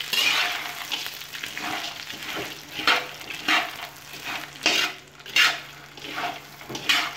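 A metal utensil stirring fried peanuts around a large wok in hot chili oil, with repeated scraping strokes over a low sizzle.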